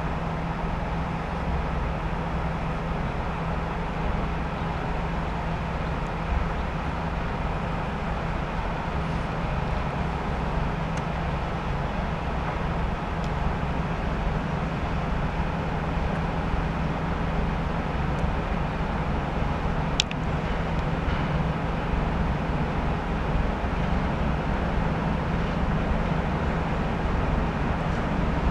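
ChME3 shunting diesel locomotive's six-cylinder diesel engine running with a steady low drone as it draws a freight train slowly closer, growing slightly louder near the end. One sharp click about two-thirds of the way through.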